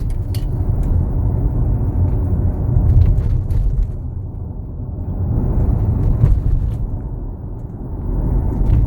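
Armoured BMW X3 being driven, heard inside the cabin: a steady low rumble of road and running noise, with scattered sharp clicks and knocks from the interior trim rattling. This is the interior noise the owner complained of.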